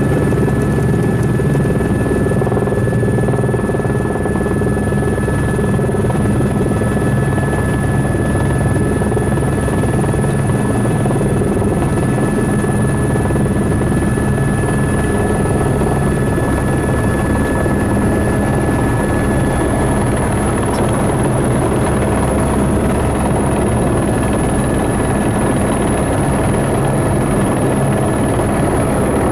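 Helicopter running close by: a steady engine and rotor drone with a high, thin whine that edges slightly upward in pitch.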